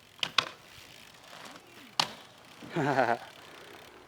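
Three sharp clacks, like board, wheel or bike impacts on skatepark concrete: two close together right at the start and one about two seconds in. About three seconds in comes a short warbling squeal.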